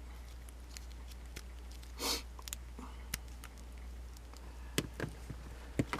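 Quiet handling of a plastic action figure: scattered small clicks and taps, most of them near the end, with one short breathy whoosh about two seconds in, over a low steady hum.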